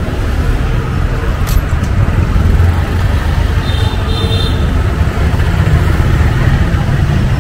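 Close street traffic: motorbikes and auto-rickshaws (tuk-tuks) running past, a steady low rumble of small engines and tyres on the road. A short high-pitched tone sounds around the middle.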